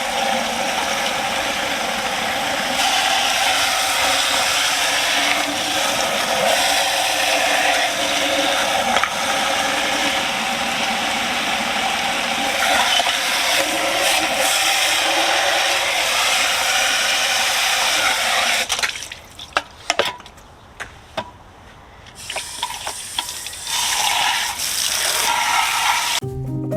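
Garden hose spraying water in a steady hiss, washing off the dirty suet cages. It cuts out about two-thirds of the way through, with a few clicks, then starts again.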